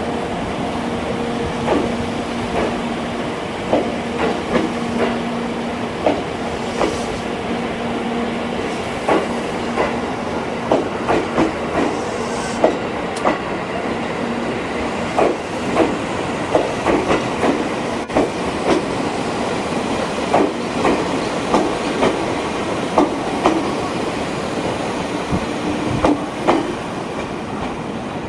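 A 205-series electric train's unpowered cars being hauled slowly by a locomotive, their wheels clacking over rail joints and points in many short irregular clicks. A steady low hum runs under the first half.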